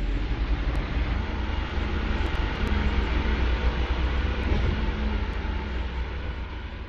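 A steady, dense rumbling noise with a heavy low end, beginning to fade near the end.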